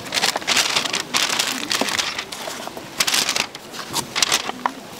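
Irregular bursts of crinkling and scraping as fried hotteok are handled with tongs and pushed into paper cups, over oil sizzling on the griddle.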